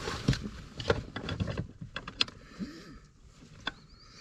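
Irregular clicks and light knocks of car pedal parts being handled and fitted by hand, at no steady rhythm, growing sparser toward the end.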